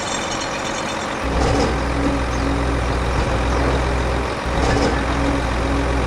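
A vehicle engine running with a steady low hum that sets in about a second in and briefly dips around four seconds in.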